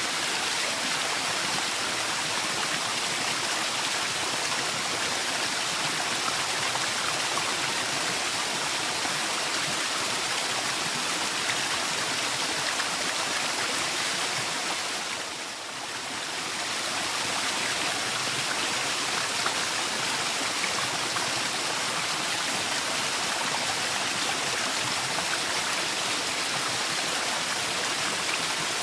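Waterfall: a steady rush of falling water that briefly fades and comes back about halfway through.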